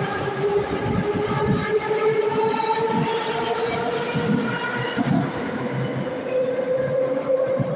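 Metro train pulling out of the station: the traction motors whine steadily, rising in pitch as it speeds up, over the wheels' knocking and clatter on the rail joints.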